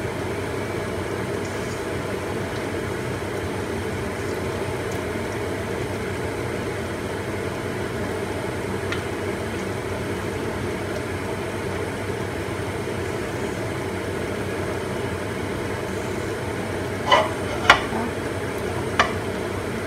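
Chicken giblets simmering in a little liquid in a wok over a gas flame, a steady cooking noise as a spatula stirs them. Near the end the spatula knocks against the wok three times.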